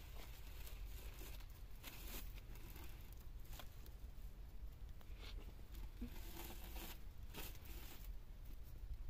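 Faint, scattered rustling, scraping and light clicks of cord being tied onto a lattice door of thin sticks.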